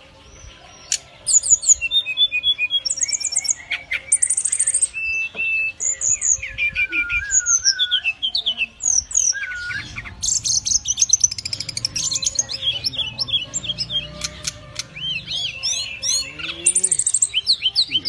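Brown-chested jungle flycatcher (Cyornis brunneatus) singing a varied song. Quick chirps, trills and rising and falling whistled notes follow one another almost without pause from about a second in.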